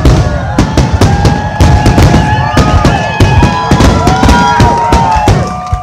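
Fireworks barrage: aerial shells bursting in rapid, overlapping bangs, several a second, with long high tones gliding up and down over them.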